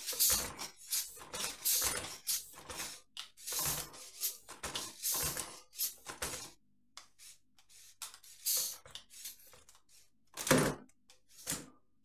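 Pneumatic suspension of a motorised Lego Technic truck running on compressed air: a run of short, irregular bursts of hissing and plastic clattering as the chassis rocks and leans. It ends with a loud clatter about ten and a half seconds in as the truck tips over.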